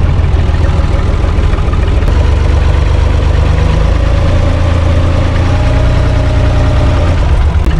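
Universal U445 DT tractor's four-cylinder diesel engine running while driving, a steady low rumble heard from the cab. A higher tone in it rises slightly in pitch through the middle.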